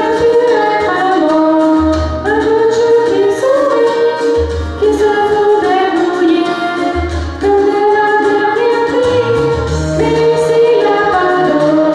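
Young woman singing a song into a handheld microphone over a recorded backing track, with a low bass note sounding about every two and a half seconds.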